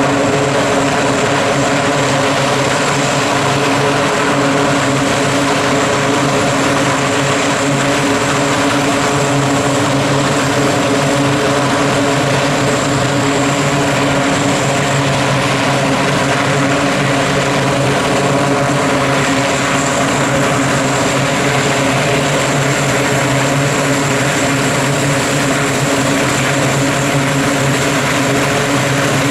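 Twin Allison T56 turboprops of a US Navy C-2A Greyhound running at taxi power, its eight-bladed propellers spinning. The sound is a loud, steady hum of several pitched tones over a rushing hiss.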